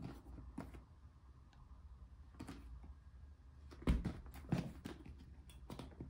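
An album box and its contents being handled and opened: a string of short knocks and rustles, with the loudest thump about four seconds in.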